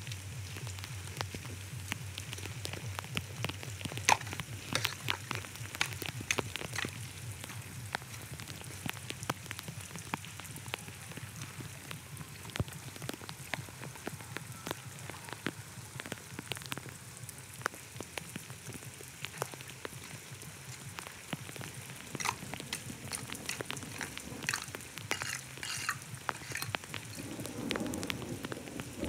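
A steady spattering, crackling patter of water, with many short sharp clicks throughout.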